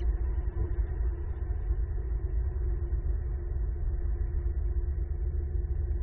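Steady low background rumble with a faint steady hum and no distinct events.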